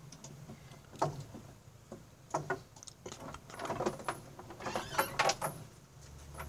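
Handling noises at a barred window grille: a single knock about a second in, then a busy run of clinks, rattles and rustles a couple of seconds later as a hand passes money through the bars.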